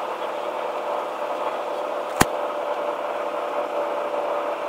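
Car driving at highway speed, heard from inside the cabin: steady road and engine noise with a faint steady tone through it, and a single sharp click about two seconds in.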